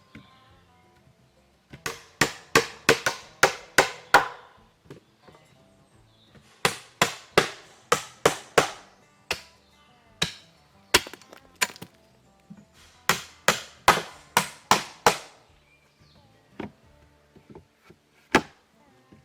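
Chopping blows of a hand tool into wood, in three quick runs of about eight strikes each at three or four a second, with a few single blows between and near the end. Faint music runs underneath.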